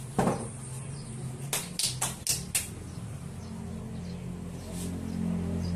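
A mixer's removed metal bottom cover set down with a knock, followed by five quick sharp clicks, over a steady low hum that grows louder near the end.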